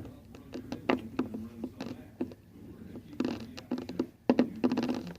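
Scattered small clicks and taps, with two short bursts of rustling and clicking near the end, over a steady low hum: small objects being handled at close range.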